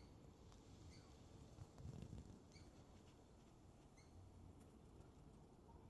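Near silence: low room tone with a few faint, brief high chirps about a second and a half apart.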